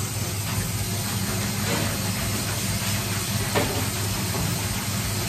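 A steady hiss over a low hum, with a few faint, irregular knocks.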